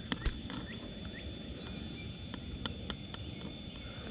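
Outdoor background of small birds chirping in short calls, over a steady high-pitched whine, with scattered light clicks and taps, the loudest about half a second in.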